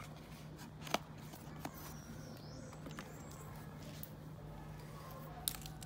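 A few faint, sharp clicks over a steady low electrical hum, likely from handling a watch and its box.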